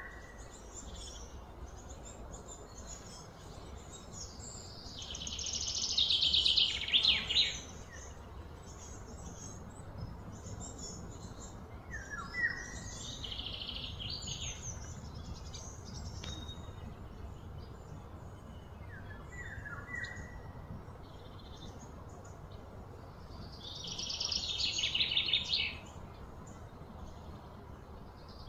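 Outdoor ambience with birds calling: short chirps scattered through, and two louder, high, rattling bursts that swell for about two seconds and then stop, one a few seconds in and one near the end. Steady low background noise runs underneath.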